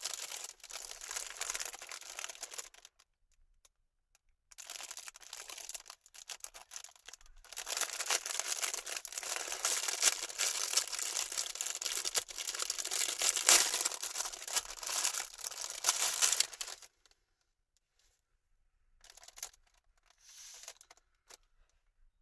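Crinkling, rustling handling noise in three stretches, the longest about ten seconds, with a few short rustles near the end.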